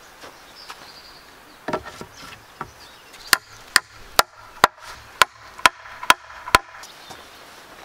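Hatchet blows on peeled round pole wood: eight sharp, evenly spaced strikes a little over two a second, after a duller knock.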